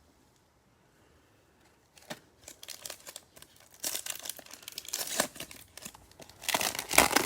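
Foil trading-card pack wrapper being torn open and crinkled by hand, starting about two seconds in and loudest near the end.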